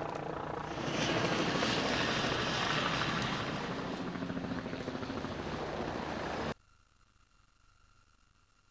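Helicopter flying low overhead, its engine and rotor noise swelling louder and hissier about a second in. The noise cuts off abruptly a little after six seconds, leaving near silence with a faint steady tone.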